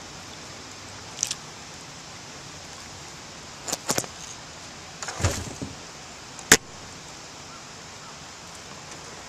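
A handful of clicks and knocks over a faint steady hiss: a plastic kayak hull and fishing gear bumping against fallen logs in the water. There is a duller thump a little after five seconds, and the loudest is a sharp knock about six and a half seconds in.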